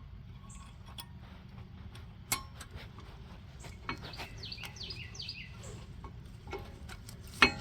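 Light metallic clicks and clinks of a brake pad being worked into the metal clips of its caliper bracket, with one loud sharp click near the end. Birds chirp in the background.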